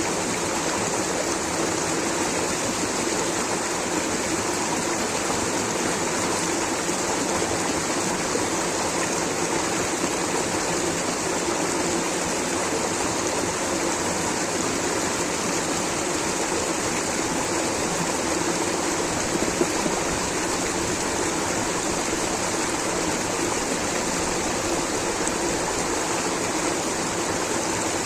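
Water rushing steadily over a stream or small waterfall, an even, unbroken hiss and splash.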